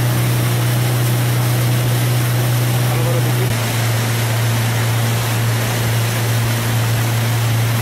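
Motorboat engine running steadily at cruising speed, a low hum with a rushing hiss of water over it; the hum's pitch shifts slightly about halfway through.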